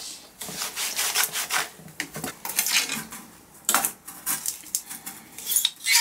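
Metal soil blocker being worked into damp soil-block mix in a plastic tub: irregular gritty scraping and rustling of soil against the metal, with a few sharp metallic clicks, the loudest just before the end as the blocker is set on a tray to push out the blocks.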